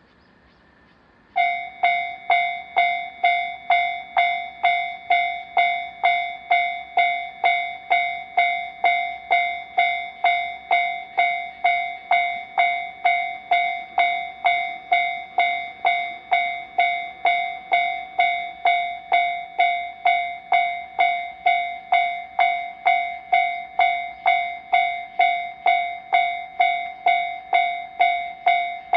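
Railroad level-crossing warning bell starts about a second and a half in and rings a steady, evenly repeated ding, a little under two strikes a second, signalling that a train is approaching.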